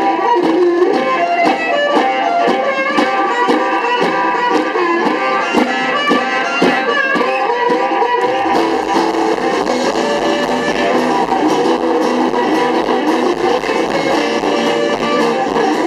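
Live band playing amplified harmonica, acoustic guitar, drums and violin. A low bass part comes in about halfway through.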